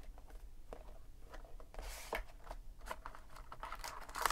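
Light rustling and scattered soft taps from a cardboard trading-card box and its foil-wrapped contents being handled and opened by hand, with a short rustle about two seconds in.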